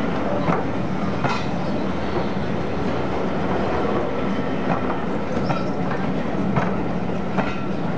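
Passenger coaches rolling past at low speed: a steady rumble of wheels on rail with sharp clacks as the wheels cross the rail joints, about one or two a second.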